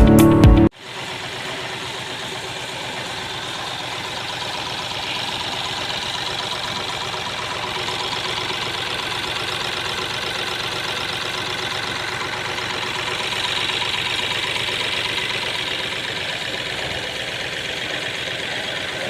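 Mahindra TUV300's three-cylinder diesel engine idling steadily after its overhaul. Background music cuts off just before it.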